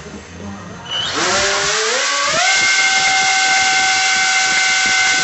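Electric RC airplane motor spinning up a two-layer carbon fiber propeller on a static thrust test. About a second in, a loud rush of air starts along with a whine that climbs in steps, then both hold steady at full throttle.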